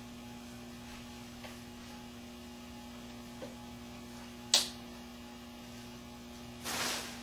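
Steady electrical mains hum under a few faint taps, a single sharp click about four and a half seconds in, and a short rustle near the end: the broken-off headstock and neck of a Gibson SG being handled and set together to test the fit of the break.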